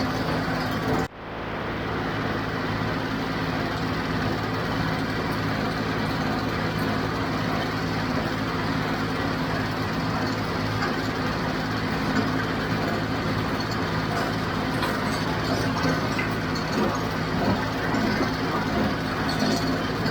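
John Deere 5055 tractor's diesel engine running steadily while driving a square baler in the field, the baler's machinery running with it. The sound cuts out sharply for a moment about a second in, then comes back.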